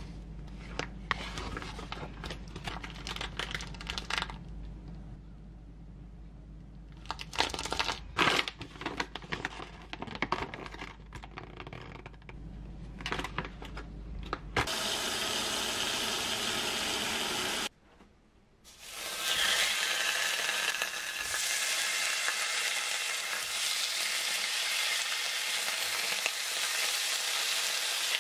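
Plastic food packaging crinkling and rustling as packs are handled, over a low hum. From about halfway, a steady sizzle of sliced pork jowl frying on a hot griddle pan, broken by a brief drop-out.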